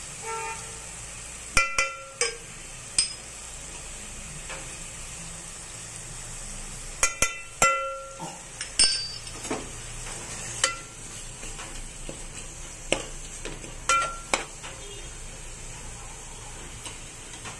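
A metal spoon clinking and scraping against an aluminium pot while powdered spices are stirred into onion-tomato masala frying in oil. A low sizzle runs underneath. The clinks come irregularly and ring briefly, with the loudest clusters about two seconds in and around the middle.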